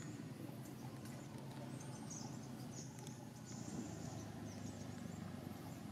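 Faint outdoor ambience: a steady low rumble with short, high-pitched chirps now and then.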